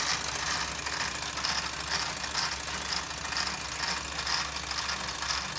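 Live-steam model steam roller running and driving a small drill press through a spring belt: a steady hiss of steam with light, uneven mechanical ticking and rattling, about two or three ticks a second.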